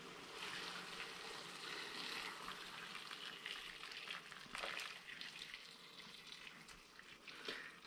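Hot tomato-vinegar marinade pouring from a steel pot over fried breaded mushrooms and onion rings in a plastic bowl: a faint, steady splashing and trickling of liquid, with a light click about four and a half seconds in.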